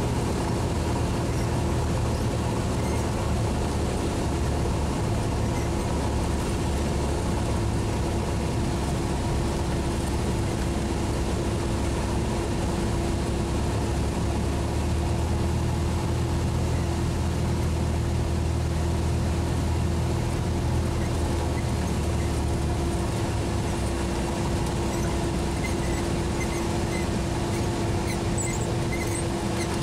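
Cessna 172's engine and propeller heard from inside the cabin on final approach: a steady drone with a constant hum over it. About 24 seconds in, the deepest part of the drone fades as the aircraft comes down to land.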